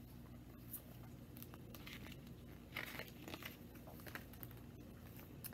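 Pages of a hardcover picture book being turned and handled: a series of soft, faint paper rustles.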